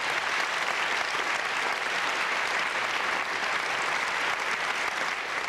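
Theatre audience applauding steadily, a dense even clapping.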